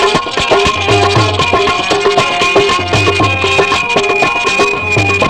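Instrumental break in a Punjabi devotional qaseeda: drums keep a steady rhythm under a melody played on instruments, with no singing.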